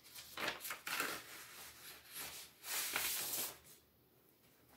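Paper inner sleeve rustling and scraping as a vinyl LP is slid out of it, in several uneven strokes that stop about three and a half seconds in.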